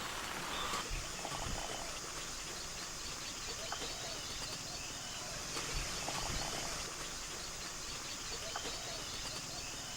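Steady high-pitched insect chorus, with scattered short bird chirps and a couple of soft low knocks.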